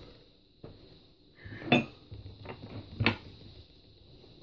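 Glass clinking on glass: a few sharp clinks, the loudest near two seconds in, as the packed glass bowl is handled and seated in the Grav Labs glass straight-tube bong.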